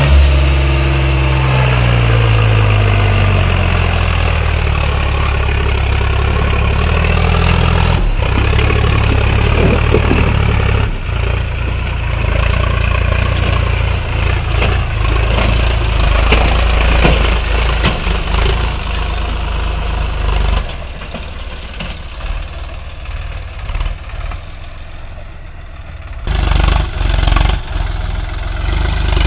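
Sonalika tractor's diesel engine running hard as it pulls a loaded trolley up a sandy slope. The revs sag over the first couple of seconds, then the engine runs loud and steady. It eases off after about twenty seconds, with one more brief surge near the end.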